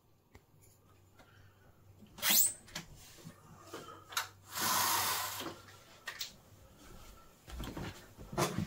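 Household noises from a neighbour's flat downstairs: a sharp knock about two seconds in, a hissing, rushing noise for about a second midway, and scattered knocks and clatter toward the end.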